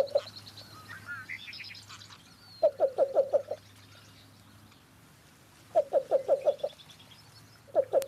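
Recorded call of a male least bittern: soft runs of five or six quick, low coos, repeated about every three seconds. Other birds chirp faintly and higher-pitched between the runs.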